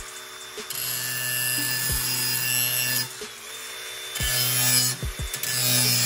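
Cordless DeWalt angle grinder sharpening a steel lawn mower blade held in a vise: the motor hums while the disc grinds along the cutting edge in two passes, about a second in and again from about four seconds, easing off in between. A few light knocks come from the tool against the blade.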